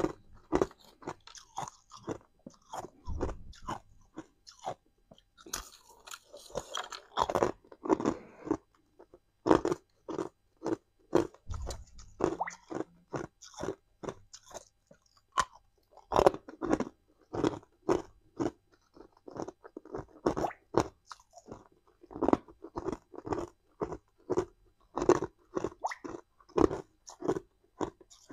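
Chunks of hard clear ice being bitten and chewed close to a clip-on microphone: a continuous run of sharp crunches, roughly two a second.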